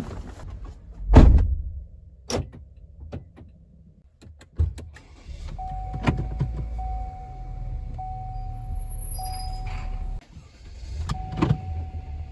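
Sounds inside a Chevrolet SUV's cabin: a loud thump about a second in, then a few clicks. From about halfway there is a low steady hum with a steady high tone over it; both break off briefly near the end, then go on.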